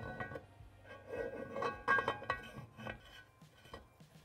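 Metal clinking and scraping as a threaded steel snorkel shaft is worked into the aluminium case half of a Polaris RZR XP 1000 transmission, the case ringing briefly after each knock, with a few louder clinks in the middle.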